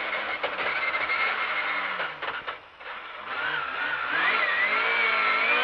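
Rally car engine heard from inside the cockpit, in first gear: it falls away briefly about halfway through as the car slows, then picks up again and revs harder, the pitch rising and wavering as it accelerates.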